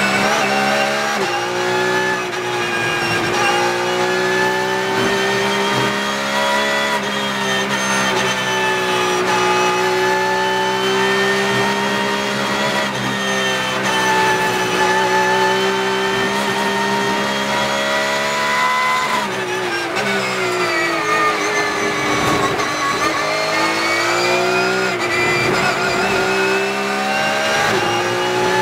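Porsche 992 GT3 Cup race car's naturally aspirated 4.0-litre flat-six, heard from inside the cockpit at high revs on a flat-out lap. The pitch climbs and falls through upshifts and downshifts, dropping sharply about two-thirds of the way through under braking into a corner, then climbing again on the throttle.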